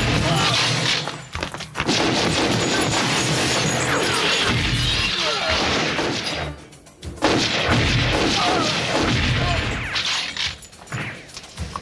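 Movie shootout soundtrack: dense, rapid gunfire with booms and crashing impacts, mixed with music. The shooting drops off briefly about six and a half seconds in, then comes back with a sudden loud blast, and grows more sporadic near the end.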